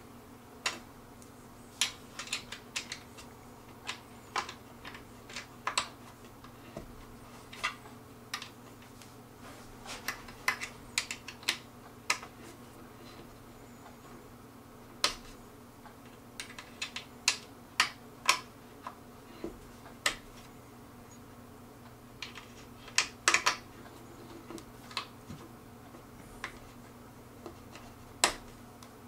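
Sharp, irregular clicks and taps of a hand tool on metal hardware as a wooden table's leg screws are tightened by hand, over a faint steady hum.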